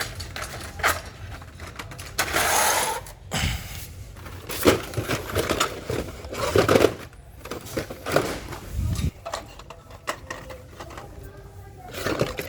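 Blister-packed die-cast toy cars being handled and shuffled out of a cardboard case: irregular plastic clicks and knocks with crinkling packaging, and a longer rustle about two seconds in.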